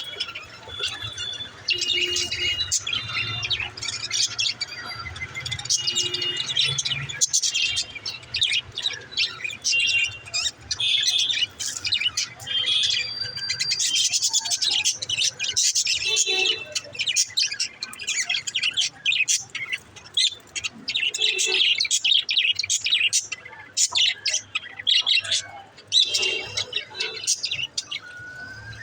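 Pet budgerigars chirping and chattering, with many quick overlapping chirps and short trills.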